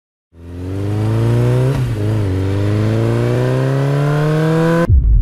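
Car engine accelerating hard, its pitch climbing, with a gear change about two seconds in before it climbs again. It cuts off abruptly near the end and a deep rumble takes over.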